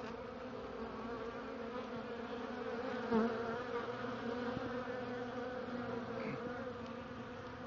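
Honey bees buzzing at a hive entrance: a steady, many-bee hum that swells briefly about three seconds in.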